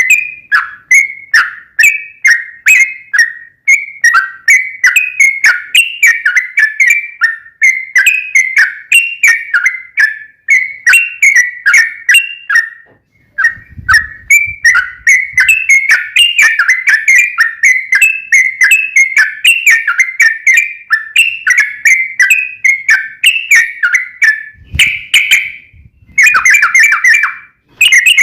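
Yellow-vented bulbul (trucukan) singing a long, unbroken run of rapid chattering chirps, two or three notes a second. There is a brief pause about halfway, and near the end the notes come faster and packed tighter. A couple of faint low thuds sit under the song.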